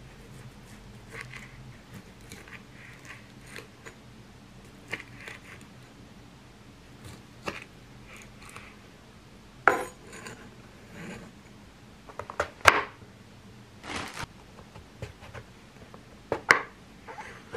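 Chef's knife cutting sausages into pieces and then slicing a king oyster mushroom, the blade knocking on a wooden cutting board. The knocks come irregularly, faint at first and sharper and louder from about halfway in.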